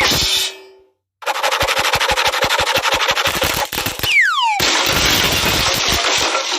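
Automatic machine-gun fire from a sound-effect sample, rapid shots about eight a second, starting just over a second in after a short silence. A falling whistle cuts through around four seconds in, and the gunfire goes on after it.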